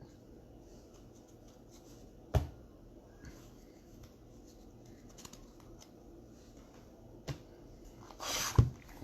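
Trading cards and card-box packaging handled on a table: faint rustling with a sharp tap about two and a half seconds in, another near the seven-second mark, then a short scraping rustle ending in a thump near the end.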